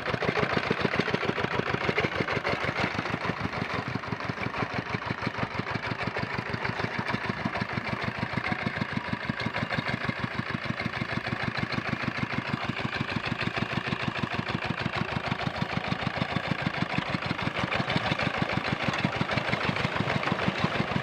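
Single-cylinder diesel engine of a rice-field hand tractor running at idle with a steady, rapid chugging beat, settling a little quieter midway and picking up again near the end.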